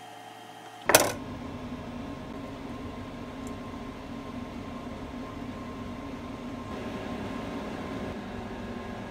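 A single sharp knock, a knife striking a plastic cutting board, about a second in, followed by a steady mechanical hum.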